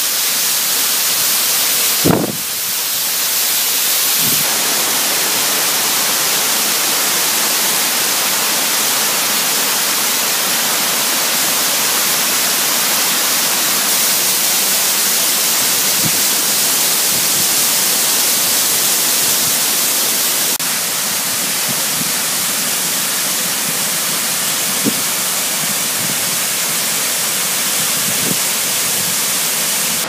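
Tall waterfall pouring down a rock face: a loud, steady rush of falling water. There are a couple of short low knocks in the first few seconds.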